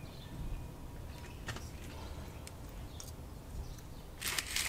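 Fingers handling a small plastic N gauge model locomotive while its body is taken off: a few faint light clicks, then a burst of clicking and scraping near the end as the parts come apart.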